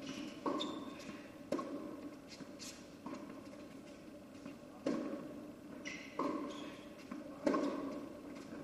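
Tennis ball struck back and forth with rackets in a baseline rally, about six sharp hits roughly a second and a half apart, each echoing in the large indoor hall.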